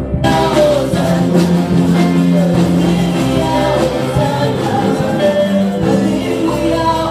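Live church worship band with keyboard and guitars playing while several vocalists sing into microphones. The sound becomes suddenly brighter and fuller just after the start.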